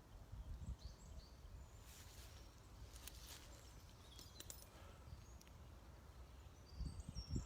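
Quiet woodland with faint birdsong: scattered short, high chirps and whistles over a soft background hiss, with a few faint low footstep thumps.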